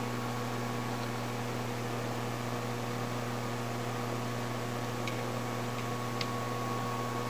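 Steady electrical hum, even and unchanging, with a few faint ticks about two-thirds of the way through.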